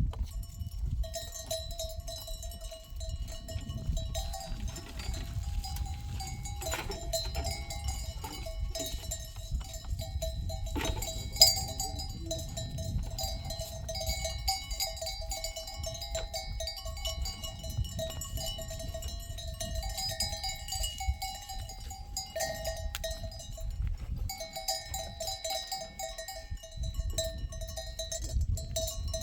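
Livestock bells on a flock clanking irregularly and continuously as the animals move, over a low rumble. A single sharp knock stands out about eleven seconds in.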